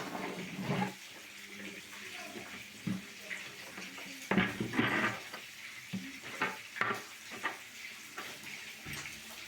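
Scattered clicks, knocks and clatter of objects being handled, several to a second, with no drill running.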